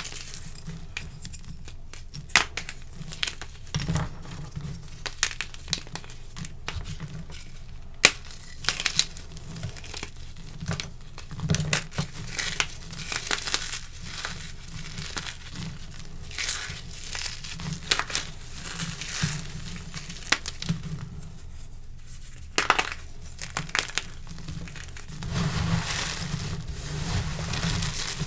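Bare hands crushing and crumbling chunks of dyed gym chalk and cornstarch: irregular crisp crunches and sharp snaps as the pieces break, growing denser and louder near the end as the hands dig into the pile.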